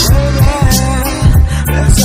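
Music with a steady drum beat, a bass line and a wavering lead melody, in the style of a reggae track.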